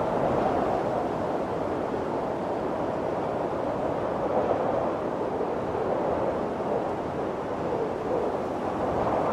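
Snowstorm wind blowing, a steady low rushing that eases slightly through the middle and swells again near the end.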